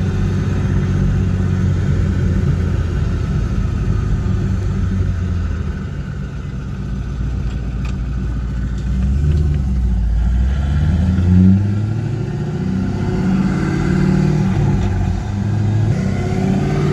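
C5 Corvette's 5.7-litre V8 pulling the car through the gears of a freshly rebuilt T56 six-speed manual transmission. The engine note holds steady, drops about five or six seconds in as revs fall, then rises again as the car accelerates.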